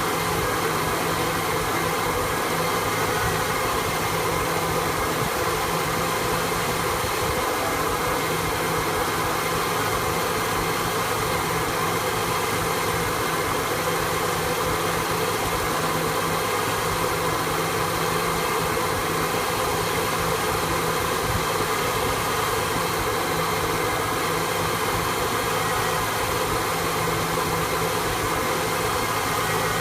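1974 Ford F100 pickup's engine, converted to electronic fuel injection, idling steadily with the rough idle it has had since the EFI swap.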